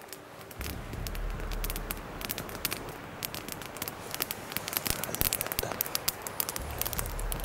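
Campfire crackling: many irregular sharp snaps and pops, over a low rumble that comes in about half a second in and again near the end.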